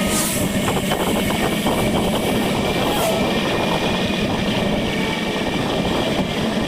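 Steady rolling noise of a bicycle ride: tyres on pavement and wind on the microphone.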